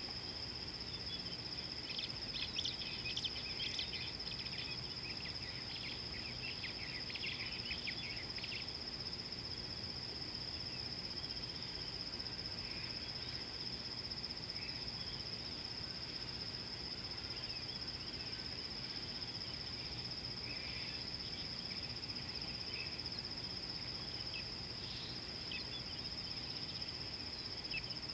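Bush ambience: a steady, high-pitched insect trill, with bursts of short bird chirps that are busiest about two to nine seconds in and scattered after that.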